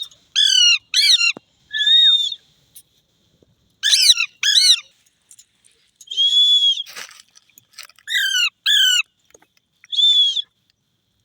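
Psittacula parakeet calling: three pairs of sharp arched squawks, each note falling at its end, alternating with three held whistle-like notes.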